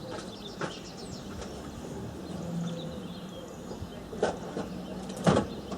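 A few sharp knocks and clatters of tools and objects being handled while rummaging, the loudest about five seconds in.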